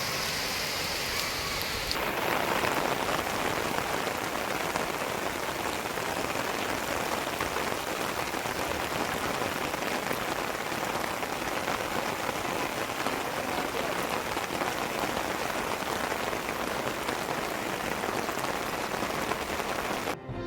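Heavy rain falling, a steady hiss of rain on surfaces. About two seconds in the sound changes abruptly to a slightly louder downpour.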